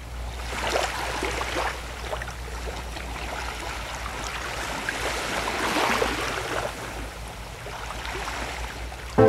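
Small waves washing onto a sandy beach, swelling and ebbing in slow surges, over a low steady rumble.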